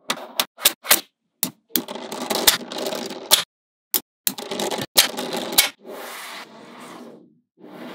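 Small magnetic balls clicking sharply as they snap together, a few single clicks first. Then come two spells of dense clattering as rows and slabs of balls shift and slide against one another, each ending in a sharp snap, and softer shuffling near the end.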